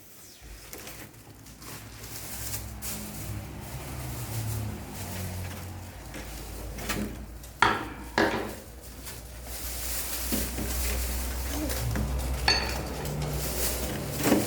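Objects being handled and set down: a low rumble of handling throughout, with a couple of sharp knocks about halfway through and another clatter near the end.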